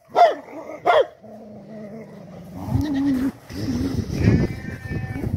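Dog barking: two sharp barks in the first second, followed by quieter, mixed sounds.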